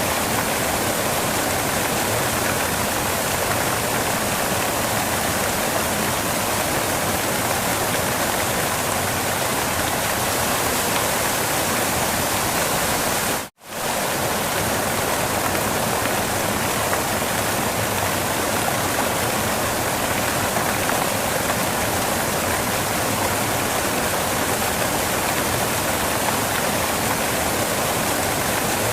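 Waterfall: a steady, even rush of falling water. About halfway through it cuts out for a split second and comes straight back.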